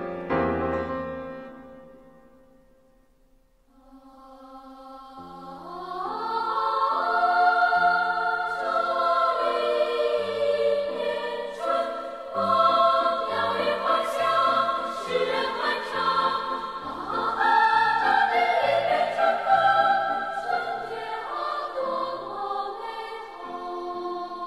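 Background music: one piece fades out, and after a short near-silent gap about three seconds in, choral music with sustained voices swells in and carries on.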